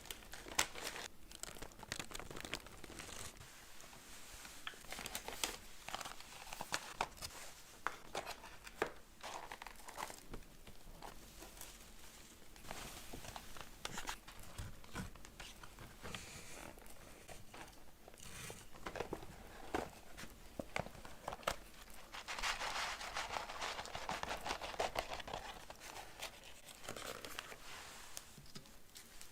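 Close-miked crinkling and tearing of food wrapping, mixed with sharp clicks and crunches from eating a burger and french fries. A denser, louder stretch of crinkling comes about three-quarters of the way through.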